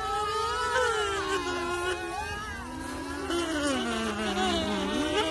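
Bee kazoos being hummed into, buzzy tones sliding slowly up and down in pitch, with two kazoos sounding at once at times.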